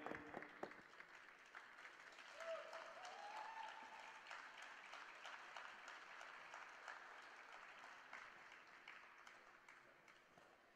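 Faint applause from a small audience, dense clapping that swells over the first few seconds and then thins out. A single rising call rings out about two seconds in.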